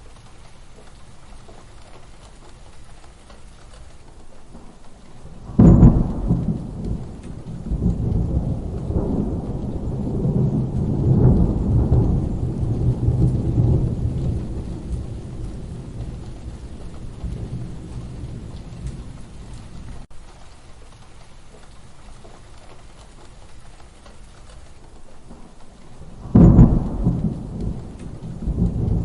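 Steady rain with two claps of thunder: a sudden crack about six seconds in that rolls on as low rumbling for nearly ten seconds, and a second crack near the end.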